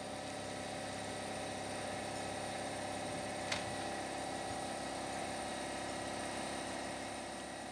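A steady mechanical hum like an idling engine, holding one level throughout. A single sharp click comes about three and a half seconds in.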